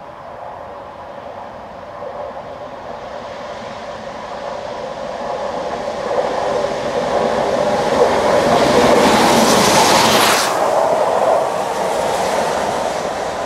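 LMS Black Five 4-6-0 steam locomotive 44871 approaching and passing close by, working steam. Its sound builds steadily and is loudest about eight to ten seconds in, then drops off sharply and fades as it runs away.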